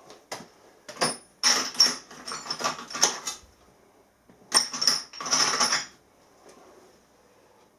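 Small steel tools clinking and rattling against each other in two short bursts of sharp clicks, with a few single clinks before them.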